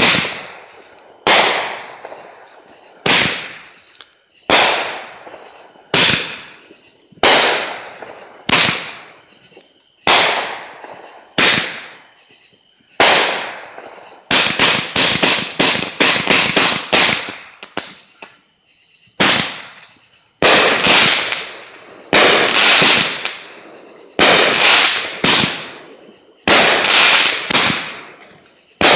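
A Hot Fireworks 'Show Starter' fireworks cake firing, its shells banging one after another about every second and a half, each bang dying away over about a second. About halfway through comes a rapid volley of a dozen or so bangs, about four a second, followed by a faster, irregular string of bangs.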